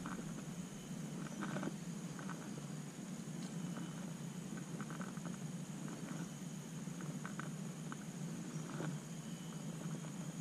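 Quiet forest-lakeside ambience: a steady high-pitched insect drone over a soft hiss, with a few faint scattered clicks.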